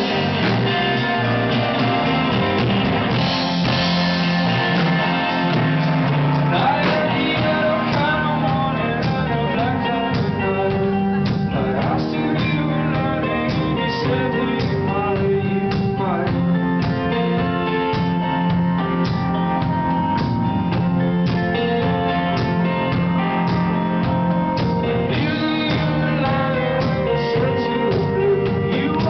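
Live band performing a song, guitar to the fore, over a steady beat.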